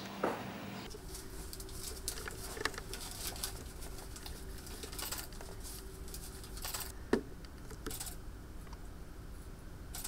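Scattered small clicks, taps and rustling from gloved hands handling tools and a bone sample at a laboratory bench, over a steady hum of lab equipment that starts about a second in. A single sharper click stands out about seven seconds in.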